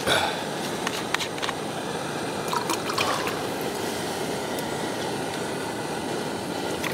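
Water pouring in a steady stream from a bottle into a cooking pot, with a couple of light knocks about a second in.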